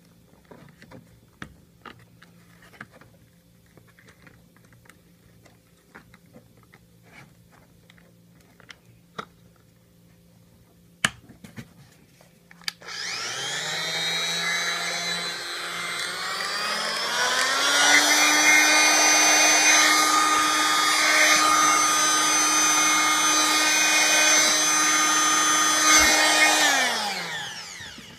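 Scattered light clicks and taps of the oscillating multi-tool being handled in its foam case, then about halfway through its motor starts, rises in pitch in two steps to full speed, runs steadily with a high whine, and spins down near the end. The tool runs free, not cutting.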